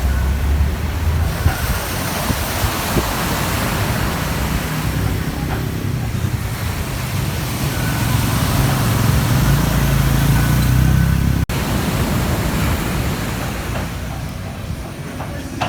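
Ocean surf breaking on a beach: a steady wash of noise that swells and eases, with a low rumble underneath. It cuts out for an instant about eleven seconds in.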